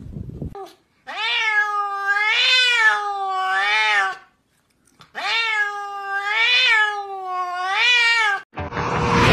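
A cat meowing in two long drawn-out calls, each running three rising-and-falling meows together, with a short pause between them. A sudden rush of noise comes in just before the end.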